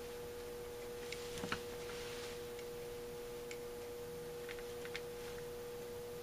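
Faint, scattered clicks and taps of metal parts as a Holley 1904 carburetor is handled and its choke shaft pin is worked back into place. A steady high background tone runs underneath.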